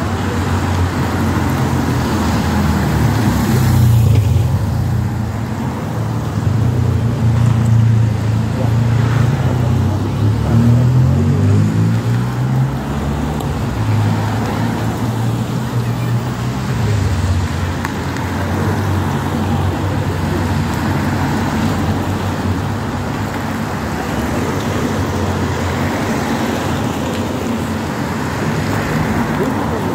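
Team cars of a cycling race convoy driving past close by one after another, their engines and tyres running continuously. One engine's note climbs about ten seconds in.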